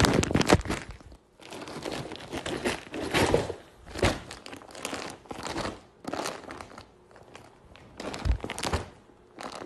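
Clear plastic packaging crinkling and rustling in irregular bursts as a blanket wrapped in a plastic bag is handled and unwrapped, with a dull thump a little after eight seconds in.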